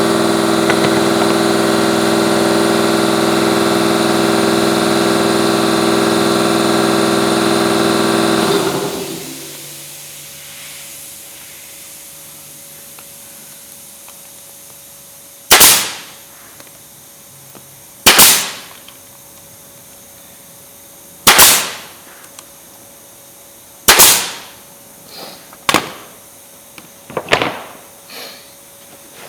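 An air compressor motor runs steadily, then cuts out and winds down about a third of the way in. Later a pneumatic brad nail gun fires four loud single shots a few seconds apart, followed by lighter knocks.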